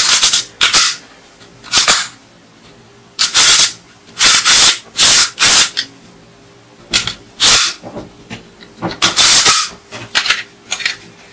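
Hard plastic toy rifle magazine handled and turned over in the hands: about a dozen short, irregular scraping and rubbing noises of plastic against skin and plastic.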